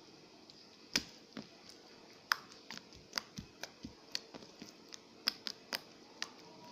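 Homemade slime being squeezed and pressed by hand, giving off irregular sharp clicks and pops as air pockets burst, starting about a second in and coming more often towards the end.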